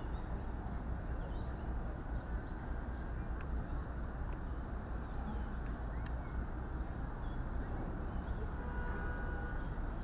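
Outdoor city ambience: a steady low rumble of distant traffic, with a few faint bird chirps near the end.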